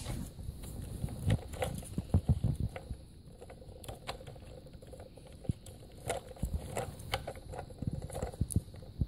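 Plastic toy screwdriver turning a plastic screw in the wheel of a toy truck: scattered light clicks and scrapes of plastic on plastic, with a few dull knocks.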